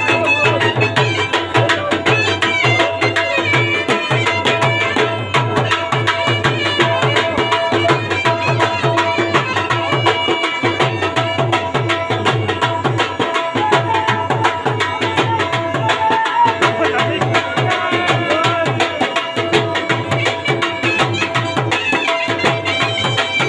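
Live dhamal music: fast, steady drumming on tabla, about four strokes a second, under held melody tones.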